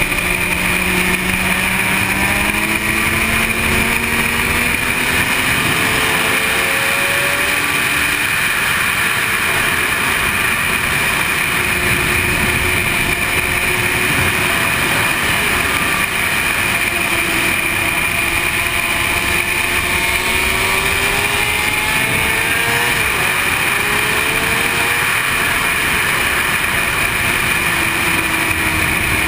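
Sport motorcycle engine running hard around a race track, its pitch rising and falling repeatedly with throttle and gear changes, under heavy wind rush on the rider's camera.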